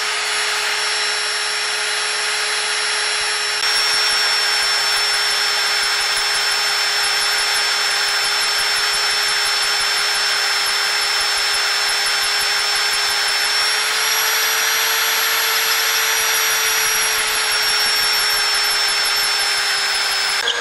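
Magnetic-base drill running steadily as its bit cuts into the broken cylinder head stud remnant in the engine casting, a continuous high motor whine. It gets a little louder a few seconds in, and its pitch rises slightly for a few seconds in the middle before settling back.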